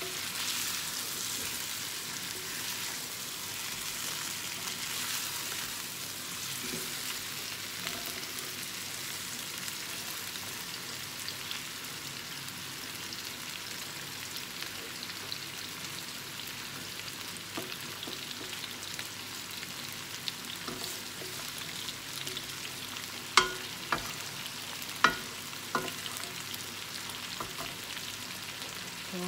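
Chicken drumsticks and minced garlic sizzling in oil in a nonstick pan, stirred with a wooden spatula to keep the garlic from burning. The sizzle is steady, with a few sharp knocks of the spatula against the pan near the end.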